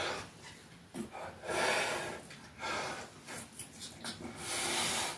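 A man breathing hard and forcefully, heavy breaths in and out about once a second, from the strain of pressing resistance bands overhead.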